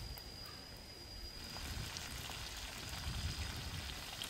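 A wok of chicken and water spinach cooking over a wood fire: a steady hiss with faint crackles, louder from about a second and a half in.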